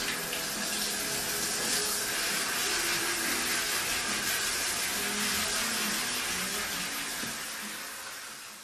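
Handheld shower head spraying water, a steady hiss that eases off near the end.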